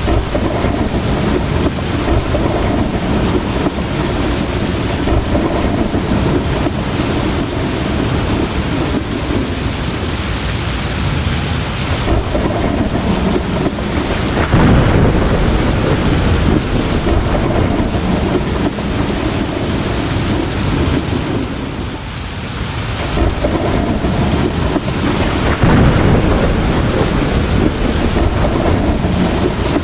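Heavy rain falling steadily, with thunder rumbling underneath. The thunder swells into louder peals twice, about halfway through and again later on.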